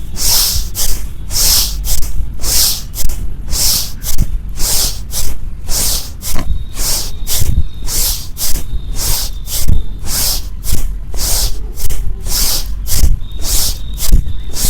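A person breathing forcefully in and out through the nose in bhastrika pranayama, in a quick, even rhythm of about three breaths every two seconds.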